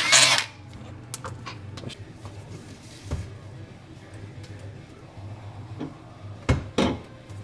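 Tools and metal parts clanking and knocking during work on a car's exhaust, with two loud knocks close together near the end, over a low steady hum. A short burst of noise dies away about half a second in.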